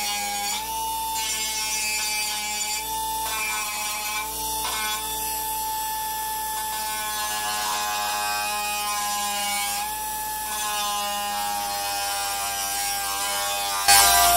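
Small high-speed electric power tool running with a steady whine, its pitch wavering slightly as it works. Near the end it gets louder and drops in pitch, as if pressed harder into the work.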